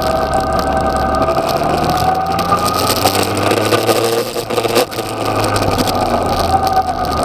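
Yamaha XJ6's inline-four engine pulling under acceleration, heard from the rider's seat with wind noise over the microphone. The engine note climbs in pitch, breaks briefly about four and a half seconds in, then runs on.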